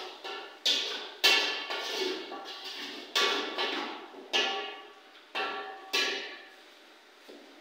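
Metal ladle knocking and scraping against a steel cooking pot while stirring on a gas stove: a series of irregular clanks, each ringing briefly.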